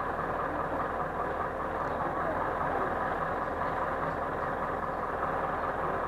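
Steady hum of a vehicle engine running, with indistinct voices mixed in.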